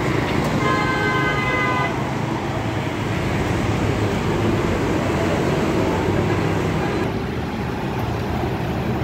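Steady street traffic noise, with a vehicle horn sounding once, from about half a second in, for a little over a second.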